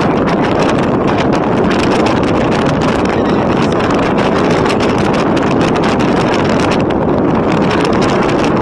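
Steady, loud rush of wind buffeting the microphone, mixed with the road noise of a moving vehicle.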